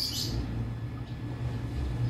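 A brief high squeak from a newborn kitten, over a low, steady rumble.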